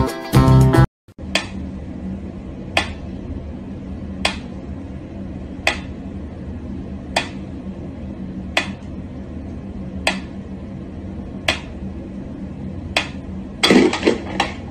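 Mechanical pyramid metronome ticking slowly, one sharp click about every one and a half seconds, over a steady low room hum. Near the end a brief louder clatter breaks in among the ticks.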